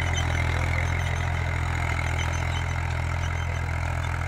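Eicher 333 tractor's three-cylinder diesel engine running steadily under heavy load while pulling an 11-tine cultivator through the soil. It fades slightly as the tractor moves away.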